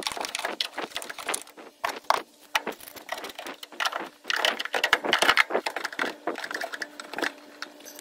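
Dense, irregular clicks, taps and scrapes of hands working plastic parts, tubing and fittings inside a Bryant furnace cabinet, with a faint steady hum underneath.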